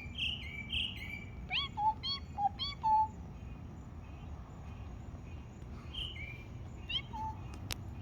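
Bird-like chirping calls traded back and forth between a bird and a woman imitating it. Quick rising and stepped whistled notes come in the first three seconds, then a pause, then a few more near the end.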